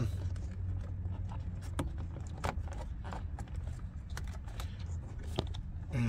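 Hands groping among wiring harnesses and plastic trim behind a car's dashboard, making scattered small clicks and rustles, over a steady low hum.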